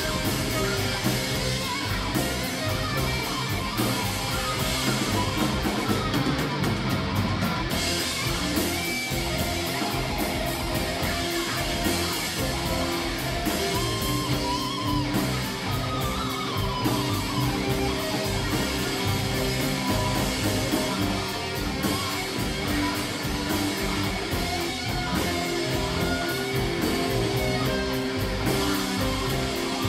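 Live rock band playing an instrumental passage, electric guitar to the fore.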